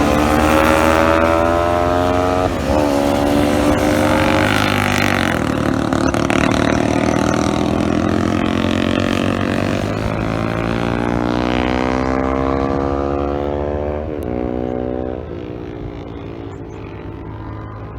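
Engine accelerating through the gears: its note climbs, drops at each shift (twice in the first five seconds, then after a long climb twice more near the end), and fades slightly in the last few seconds.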